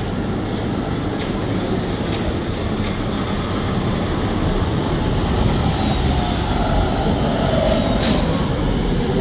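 Wuppertal Schwebebahn suspended monorail car running in along its overhead steel girder track and into the station. A steady rumble grows louder from about four seconds in as it draws close, with a few faint clicks and a faint wavering whine near the end.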